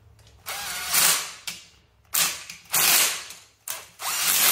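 Red cordless impact driver running transmission-case bolts down tight in about five short bursts, each with a quick rising whine as the motor spins up.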